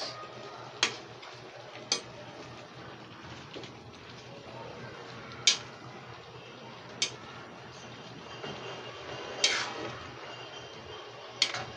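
Black plastic spatula knocking against a metal cooking pot while stirring a stew of pork and potatoes: about six sharp, widely spaced knocks over a faint steady low hum.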